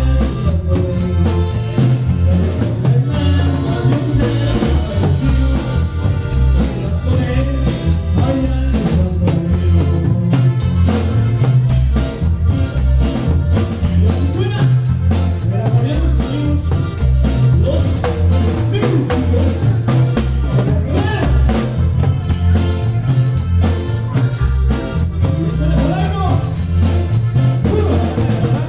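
Norteño band playing loud amplified dance music, with a steady bass and drum beat under a singing voice.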